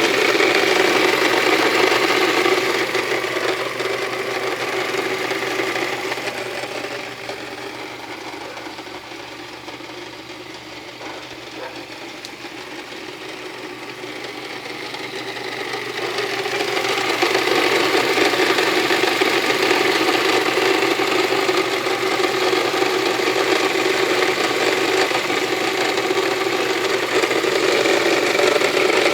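Citroën Xsara Picasso engine running steadily with a rattling noise from the timing belt. The owner traced it to the timing belt, its bearing and the water pump, and cured it by replacing them. It grows quieter for several seconds partway through, then louder again.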